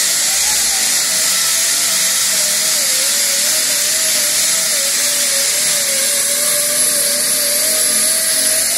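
Rotary sander with a 36-grit disc running at about 5,000 rpm, stripping old paint and body filler down to bare sheet metal. A steady whine over a loud hiss, its pitch dipping slightly now and then as the disc is pressed and worked back and forth.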